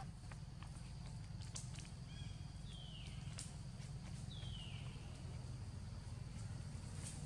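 Scattered light ticks and crackles of dry leaves and palm frond as a baby monkey handles and climbs on them, over a steady low hum. Two short high calls, each sliding downward, come about three and four and a half seconds in.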